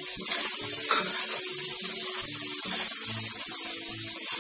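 Boiled potato pieces sizzling in hot oil and spices in a kadhai while a spatula stirs them, with one sharp knock of the spatula on the pan about a second in.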